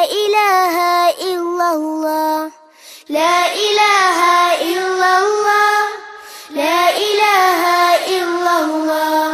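Song on the soundtrack: a high voice sings a melody in sustained phrases, breaking off briefly twice.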